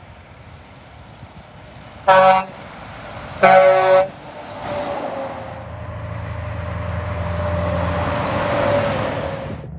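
Semi truck air horn sounded twice, a short blast and then a longer one, followed by a semi truck passing close by, its engine and tyre noise growing louder.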